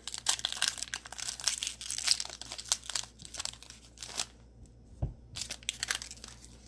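Cellophane wrapper of a football Prizm cello pack crinkling as it is torn open for about four seconds, then a few lighter rustles and a soft thump as the cards come out.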